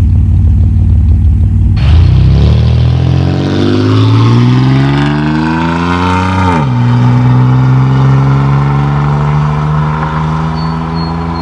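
1997 Chevy Camaro's 3.8L Series II V6 exhaust through a Cherry Bomb muffler under acceleration. It runs steadily for about two seconds, then climbs in pitch, drops sharply at an upshift about two-thirds of the way through, and starts climbing again more slowly.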